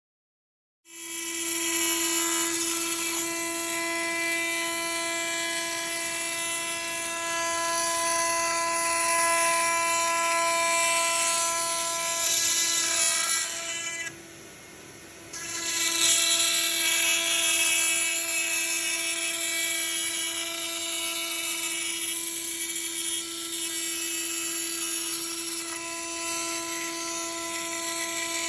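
CNC router spindle running at speed with a steady high whine, its bit cutting wood with a hiss. About fourteen seconds in, the cutting noise drops away for a second and a half while the spindle keeps whining, then the cut resumes.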